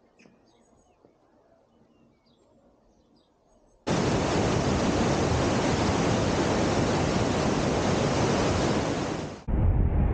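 Faint bird chirps over a low rumble. About four seconds in, a sudden loud, steady rushing of a fast white-water glacial river over rocks begins. It cuts off abruptly near the end into low wind rumble.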